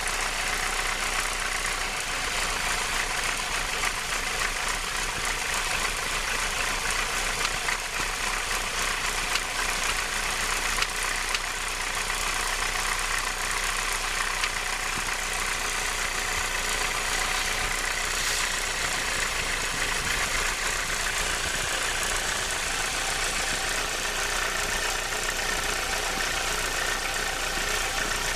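Renault 19 16V's F7P 1.8-litre sixteen-valve engine idling steadily with the alternator belt removed, carrying a strange noise that the owner traces to the cambelt (timing belt) area.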